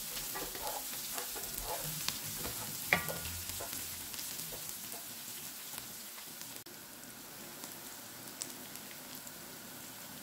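Sliced onions and whole spices sizzling in hot oil in a frying pan, with a wooden spoon scraping and tapping the pan over the first few seconds, then a steady sizzle. The spices are being fried in the oil to release their flavour.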